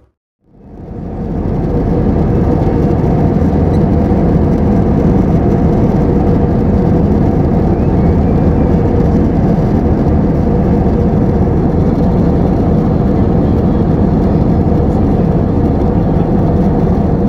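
Steady cabin noise of a jet airliner in flight, a constant rumble and rush of engines and airflow heard from a window seat near the wing. It fades in from silence in the first second or two.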